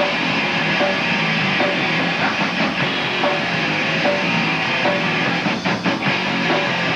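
Live rock band playing an instrumental stretch with no singing: electric guitar and drum kit.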